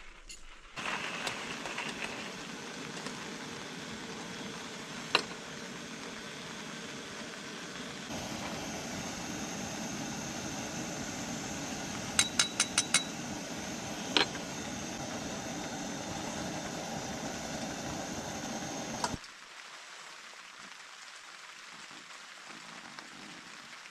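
Single-burner liquid-fuel camp stove burning with a steady roar under a metal kettle, growing louder about a third of the way in, with sharp metal clinks, five of them in quick succession in the middle. The stove cuts off suddenly near the end, and hot water is then poured from the kettle into a pour-over coffee filter.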